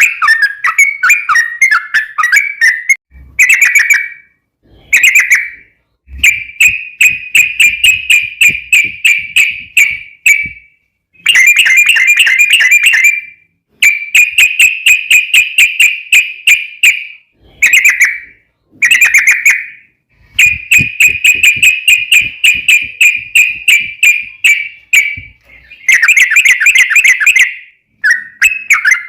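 Yellow-vented bulbul (trucukan) singing: loud, long rolling phrases of rapid repeated chattering notes, each lasting one to four seconds, with short pauses between them.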